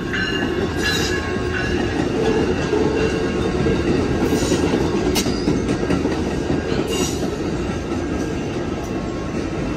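Amtrak San Joaquin passenger train's cars rolling past while pulling into the station: a steady rumble of wheels on rail, with a few brief high wheel squeals and sharp clicks.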